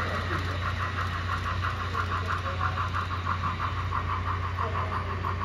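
HO scale model steam locomotive running, its sound making a rhythmic chuffing at about six beats a second over a steady low hum.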